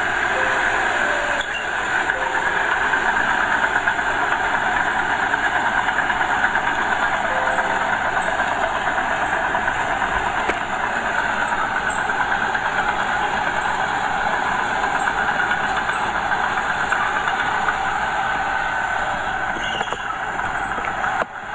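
Small Komatsu bulldozer's diesel engine running steadily, with a continuous mechanical clatter.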